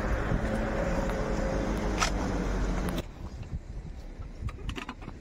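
Helicopter on the helipad running, a loud steady mechanical noise with a hum that sinks slightly in pitch, cut off abruptly about three seconds in. Quieter scattered clicks and shuffling follow.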